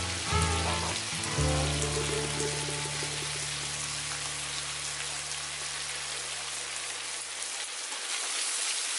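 Chopped tomatoes and spices frying in hot oil in a kadai, a steady sizzle, with a wooden spatula starting to stir near the end. Background music plays over it, a held low note that fades away.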